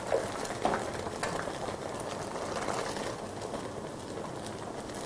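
Shredded catfish frying in hot oil in a pan: a steady sizzle with small crackles, with a few light clicks in the first second and a half.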